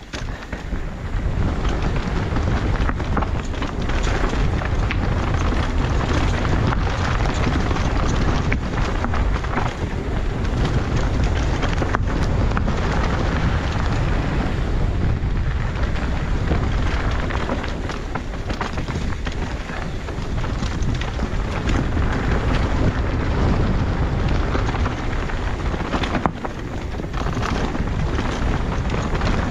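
A mountain bike ridden fast down a rough dirt trail: wind rushing over the microphone, with a dense run of small knocks and rattles from the tyres and bike over stones and roots.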